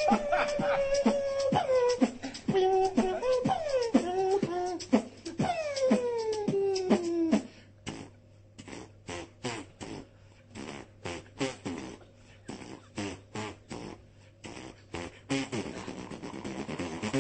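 Beatboxer making vocal sound effects: held hums and falling whistle-like glides mixed with mouth clicks. About halfway through it changes to a run of sharp mouth clicks and pops, two or three a second. Near the end comes a buzzing, hissing sound.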